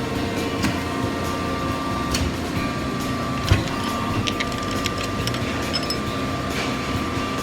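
Factory machinery, a welding and press line, running steadily with a high whining tone that drops out briefly a few times, scattered clicks, and one sharp thump about three and a half seconds in.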